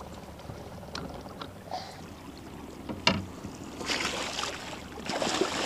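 Water splashing as a hooked zander thrashes at the surface beside the boat and is brought into the landing net. There are a few light knocks early on and one sharp knock about three seconds in.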